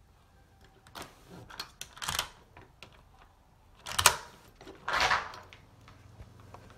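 A front door's deadbolt and knob clicking and clunking as the door is unlocked and opened, with a sharp knock about four seconds in, the loudest sound, and a short swish just after it.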